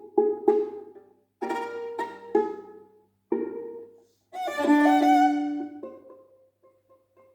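Violin music: a string of short plucked and bowed notes with brief gaps, then one long held note with vibrato about four and a half seconds in, trailing off into soft short notes near the end.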